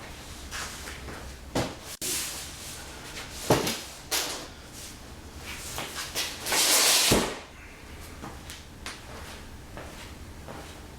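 Handling noises: a few sharp knocks and clunks, and about six seconds in a louder rushing, scraping noise lasting about a second.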